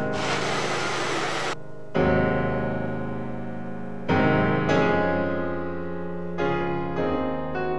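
Countertop blender running over piano music, cutting off about a second and a half in. After that, solo piano music, with chords struck every second or two and left to ring.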